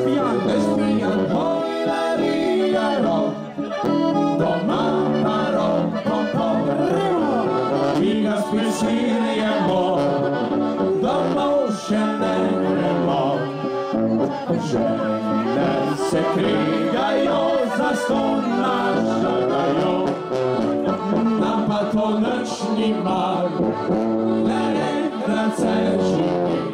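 Live folk band playing a lively dance tune: accordion leading, with brass horns and guitar.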